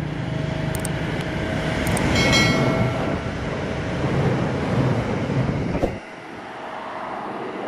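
A passenger train passing close by: a loud, steady rumble of wheels and running gear that drops away sharply about six seconds in. A brief high ringing tone sounds over it about two seconds in.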